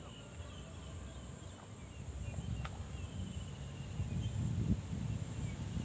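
Outdoor ambience with insects giving a steady, high, continuous trill, with a few faint chirps. An uneven low rumble, likely wind on the microphone, swells from about two seconds in and becomes the loudest sound.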